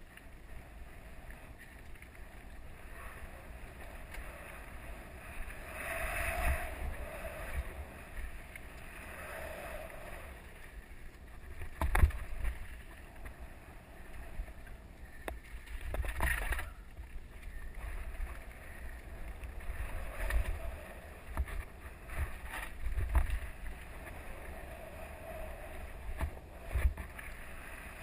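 Mountain bike running down a dry dirt singletrack: wind rushing over the bike-mounted camera's microphone and tyres rolling over dirt, broken by sharp knocks and rattles from the bike hitting bumps, the loudest about twelve seconds in, with others every few seconds after.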